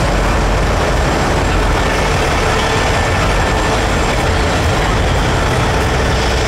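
Steady, loud rumble of heavy vehicle engines running, with no breaks or changes.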